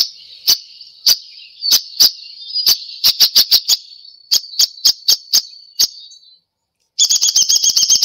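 Recorded downy woodpecker calls played from a handheld bird-call identifier: a string of sharp single notes at uneven spacing, then, about a second before the end, a rapid run of high notes, the downy woodpecker's descending whinny.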